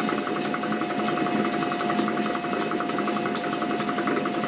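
Old York Borg Warner refrigeration compressor, belt-driven by an electric motor on a variable frequency drive at about 60 Hz, running steadily with a fast, even rattle and a steady whine. The owner blames the racket on a pulley that is not straight.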